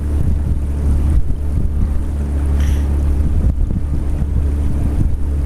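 Outboard motor running steadily as the boat moves, with strong wind buffeting the microphone.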